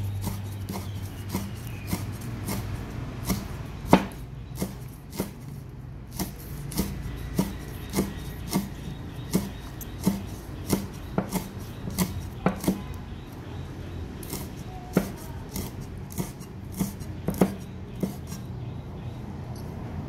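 Cleaver chopping kaffir lime leaves finely on a thick round wooden chopping block: irregular knocks, about one or two a second, one sharper blow about four seconds in.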